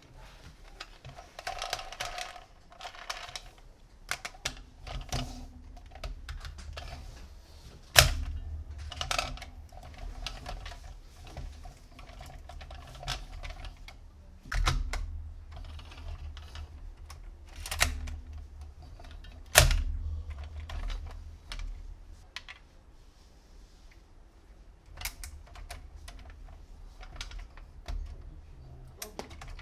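Plastic toy vehicles and their packaging being handled: an irregular run of small clicks and taps, with a few sharper knocks and a short rustle about two seconds in.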